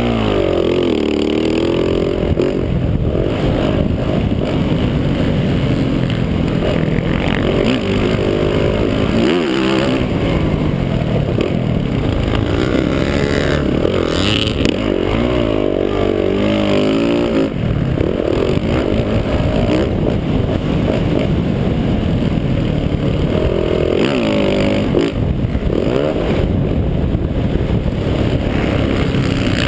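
Motocross bike engine heard on board, revving up hard and dropping back over and over as the rider accelerates out of corners and shifts.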